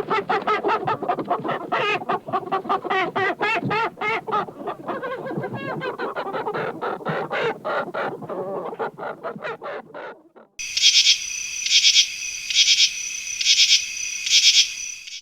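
Chickens clucking rapidly and continuously for about ten seconds. After a brief pause comes a different high, raspy buzzing chirp, repeated about five times at a steady pace of a little under one a second.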